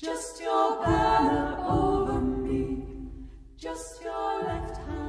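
Choir singing a cappella in slow held chords. Deeper voices join about a second in, the voices break off briefly after about three and a half seconds, and a new chord begins.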